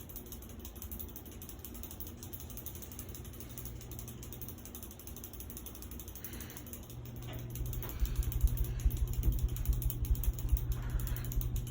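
Hunter Savoy ceiling fan running in reverse: a steady motor hum with a fast mechanical rhythm. From about eight seconds in it turns louder, with a low fluttering rumble.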